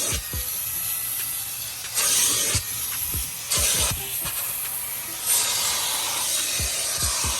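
Hart 3-in-1 wet/dry vacuum extractor running in vacuum-only mode with the sprayer off: a steady hiss of suction. The hiss swells three times as the nozzle is pulled across the fabric.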